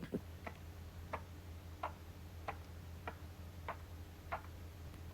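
A steady rhythm of light, sharp clicks, about three every two seconds, over a low steady hum.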